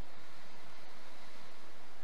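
Surf breaking and washing against a concrete tetrapod breakwater, a steady rush of noise, with wind on the microphone.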